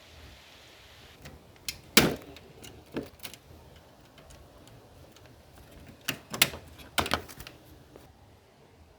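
Scattered sharp clicks and knocks from small parts being handled, about half a dozen in all, the loudest about two seconds in and a cluster of them around six to seven seconds in.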